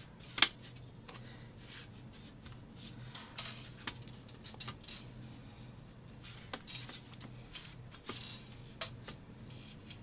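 Hands pressing and patting the bottom cover of an Asus ROG Zephyrus Duo 16 laptop back into place, with one sharp click about half a second in and scattered lighter clicks and taps after it.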